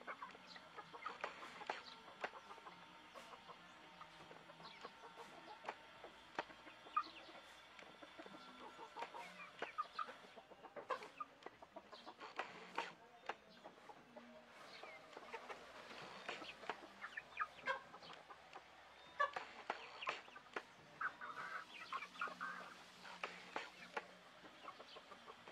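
A flock of young Dong Tao chickens clucking softly while pecking at grain. Many sharp little ticks of beaks striking the ground run throughout, and a cluster of short calls comes near the end.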